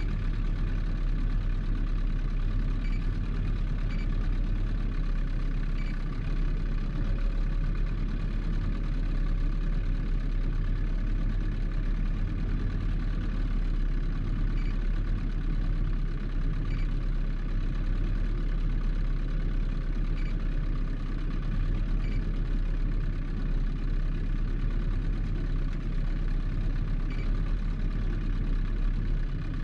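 Boat's outboard motor running steadily at slow trolling speed, a low even drone.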